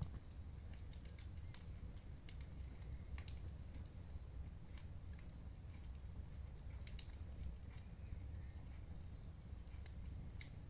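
Wood fire in a fireplace crackling: irregular sharp snaps and pops over a low steady rumble.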